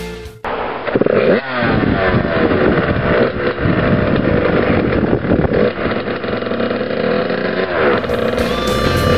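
Suzuki dirt bike engine running, revving up sharply about a second in, then running on with small rises and falls in pitch.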